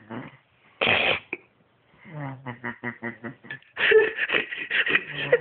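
A man snoring: a low snore with a fast flutter on the in-breath, then a short, rough puff of air about a second in; a second, louder round of fluttering snore and noisy breath follows in the second half.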